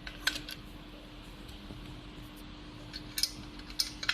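Small metal clicks from a sliding-door lock's back handle being fitted to the lock body, its spindle pin going into the hole. There is one click just after the start and a few more near the end, over a faint steady hum.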